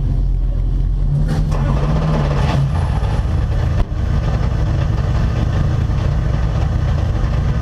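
Porsche 911 GT3 R race car's flat-six idling while stationary, heard from inside the cockpit. The sound cuts out for a moment about four seconds in.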